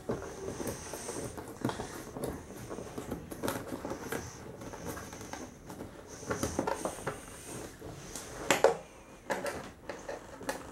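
Screws being undone from the black plastic display base of a boxed 1:18 scale model car: small clicks, scrapes and handling knocks on plastic, with a louder knock about eight and a half seconds in.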